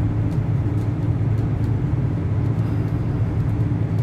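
Steady low rumble of a tram running at speed, heard from inside the car, with a faint steady tone above the rumble and a few light ticks.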